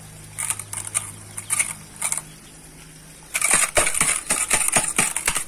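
A few light clinks as garlic cloves are dropped into a speckled enamel pot, then, about three seconds in, a wooden pestle starts pounding the garlic in the pot: a fast run of sharp knocks, several a second.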